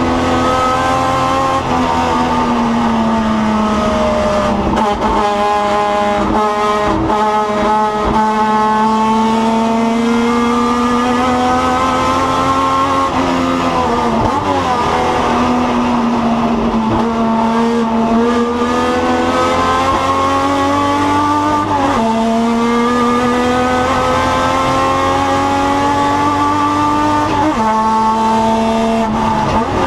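Turismo Carretera race car engine heard onboard at racing speed. Its pitch climbs steadily through each gear and then drops sharply at the gear changes, several times over, with some tyre squeal.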